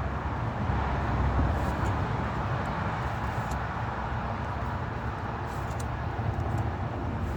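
Steady low rumble, with a few faint light clicks of trading cards being handled.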